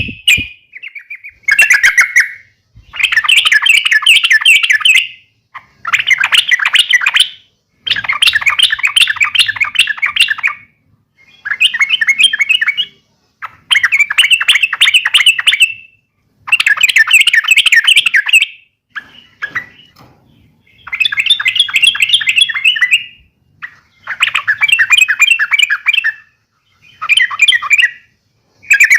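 Yellow-vented bulbul (trucuk) singing its agitated fighting call: a dozen or so loud, bubbly warbled phrases, each one to two and a half seconds long, with short pauses between them.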